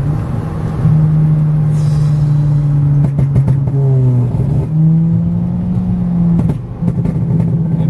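Turbocharged car engine pulling hard under acceleration, heard from inside the cabin. Its drone jumps to a new pitch about a second in and again near the middle, with a few short rattles.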